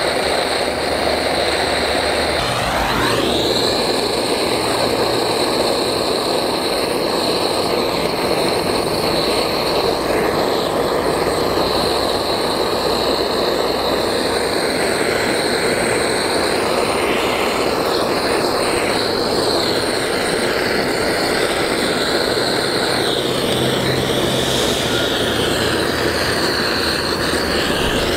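Handheld Trade Flame gas torch running with its jet flame on a laptop, a steady hissing roar, with a shift in its sound about three seconds in.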